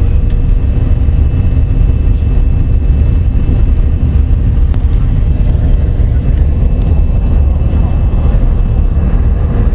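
Cabin noise inside a CRJ-200 regional jet on approach: a loud, steady low rumble from its rear-mounted GE CF34 turbofans and the airflow past the fuselage, with faint steady whining tones over it.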